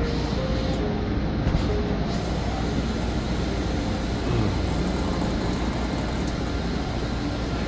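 Steady background din of a busy exhibition hall: an even low rumble with indistinct noise over it and no distinct events.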